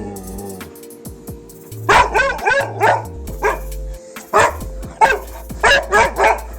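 A dog barking in a run of short, sharp barks starting about two seconds in, over background music.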